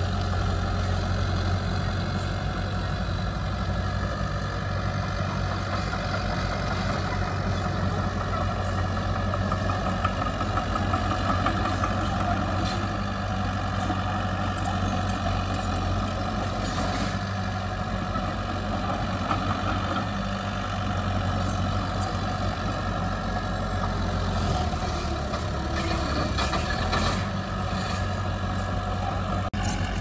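Heavy diesel engines of earthmoving machinery (a bulldozer and dump trucks) running steadily, with a few short clicks or knocks scattered through.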